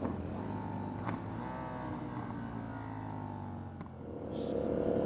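KTM Duke 890R's parallel-twin engine with its catless exhaust running at low revs, its note sinking slowly as the bike eases off. About four seconds in, a steadier engine note comes in and grows louder. There are two faint clicks, about a second in and near four seconds.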